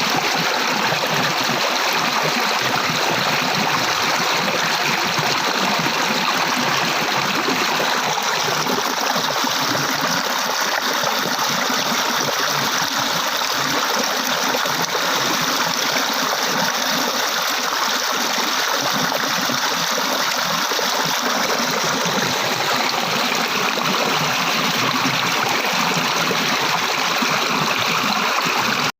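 Flowing water running steadily, with an even, unbroken sound.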